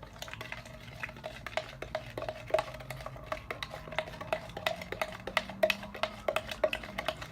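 A utensil stirring slime mixture in a bowl, clinking irregularly against the bowl's sides several times a second, each tap ringing briefly.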